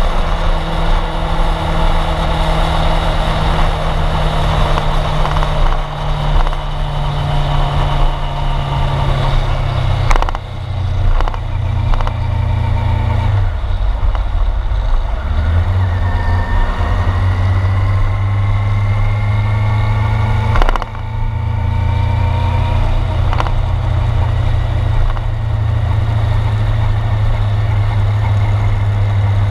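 Sport motorcycle engine running under way, heard from a camera on its own fairing, with wind hiss over it. The engine pitch rises steadily through the middle, and the sound breaks off sharply for a moment twice, about a third and two-thirds of the way in.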